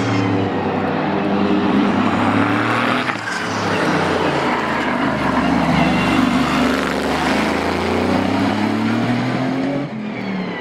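Aston Martin Vantage GT3's Mercedes-AMG 4.0-litre twin-turbo V8 racing engine running, its pitch rising and falling as the car moves. Near the end the sound drops in level.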